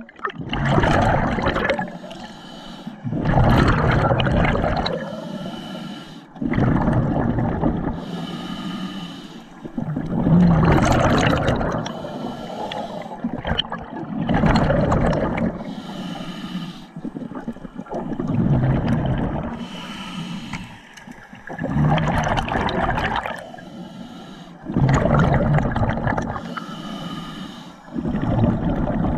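Scuba diver breathing through a regulator underwater: an even cycle of about nine breaths, each a quieter hissing inhale followed by a loud rush of exhaled bubbles, roughly every three and a half seconds.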